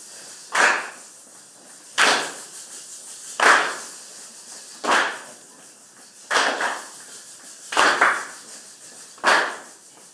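A school band clapping in unison, one group clap about every second and a half on beat one of each bar. A few of the claps land slightly ragged, with a doubled attack.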